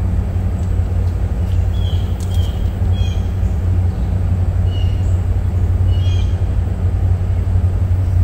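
A steady low hum, like a running motor, with a bird chirping short high notes every second or so over it.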